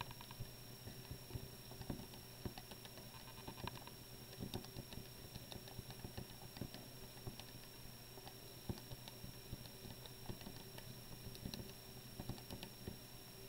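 Keys of a Texas Instruments TI-83 Plus graphing calculator pressed in quick succession, a faint run of irregular small clicks as numbers are entered into a list.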